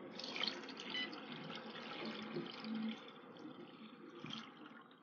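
Drinking water poured from a plastic tumbler into a plastic bowl that already holds water, splashing and churning; the pour eases off about three seconds in.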